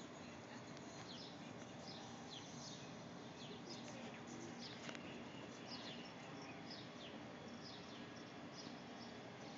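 Faint steady outdoor background hiss with distant birds chirping: short, high, falling chirps every second or so. A single light tick about halfway through.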